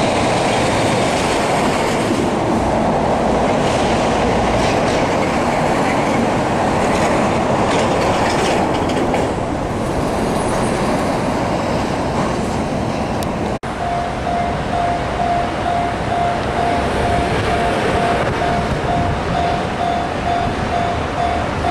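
Continuous rumble and clickety-clack of a train running on the rails. After a cut about two-thirds of the way in, a diesel freight locomotive hauls tank wagons while a level-crossing bell rings in steady, evenly spaced pulses.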